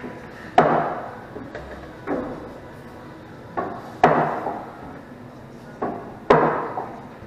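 Pool balls clacking and rolling after a 9-ball break: about seven sharp knocks at irregular intervals, each trailing off over about half a second.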